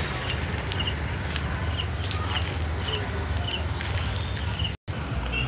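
Insects chirping: short high chirps, two or three a second, over a steady outdoor hiss and low rumble. The sound drops out for an instant near the end.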